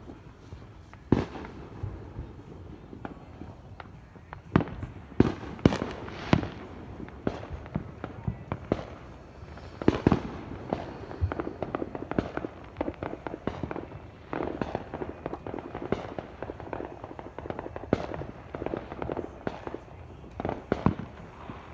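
Fireworks going off: a dense, irregular series of bangs and booms, some sharp and near, with crackling clusters in between.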